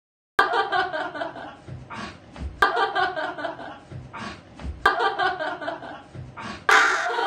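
People chuckling and laughing in a small room. The same two-second stretch is replayed three times in a row, with a click at each cut. Music starts near the end.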